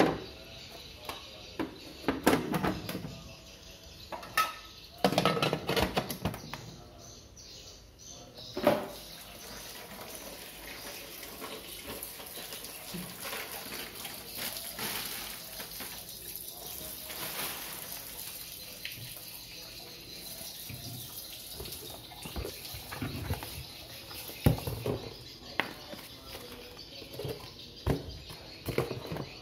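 Knocks and clatter of plastic water-purifier parts being handled, then a steady run of water for roughly ten seconds in the middle, then more knocking and the rustle of a cardboard box near the end.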